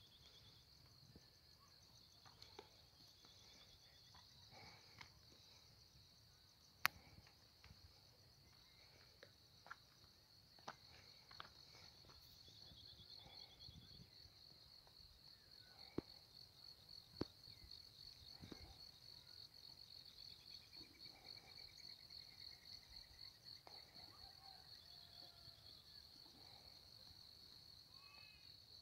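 Faint chorus of insects, a steady high-pitched, rapidly pulsing drone, with a few sharp clicks and occasional faint bird calls.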